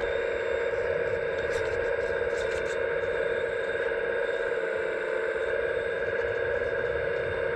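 Steady whine of an RC scale model's hydraulic pump running at constant speed, with faint scattered ticks over it.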